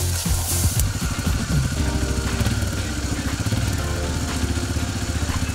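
Kymco MXU 300 quad's fuel-injected single-cylinder engine running steadily at low revs. A brief rustling hiss comes in the first second.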